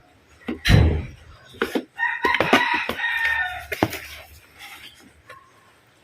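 A rooster crows once, from about two seconds in for about a second and a half, the call falling in pitch at its end. Near the start there is a loud thump with rustling, and a few sharp clicks follow.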